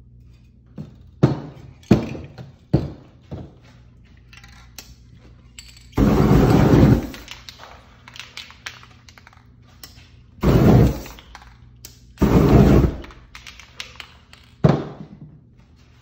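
Aerosol spray paint cans sprayed in three short hissing bursts of about a second each, between sharp knocks of cans and tools on the table: several knocks in the first few seconds and one more near the end.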